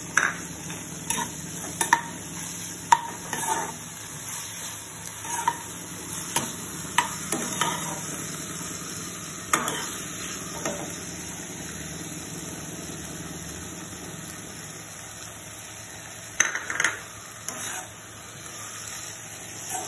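A metal ladle stirring and scraping vegetable and paneer momo filling in a non-stick frying pan, with irregular clicks and scrapes against the pan for the first ten seconds and again near the end. A faint steady sizzle from the sautéing filling runs underneath.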